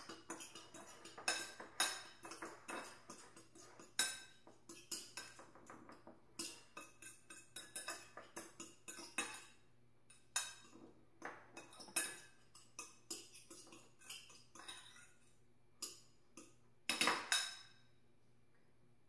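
Metal fork stirring a dry seasoned whey-protein breading mix in a ceramic plate: irregular clinks and scrapes of the fork against the plate. A louder stretch lasting about a second comes near the end.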